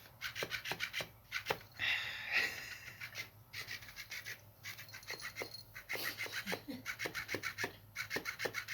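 Motorized flopping-fish cat toy flapping its tail: a rapid, even rasping rhythm with a metallic motor sound, like someone sawing wood. It pauses briefly twice.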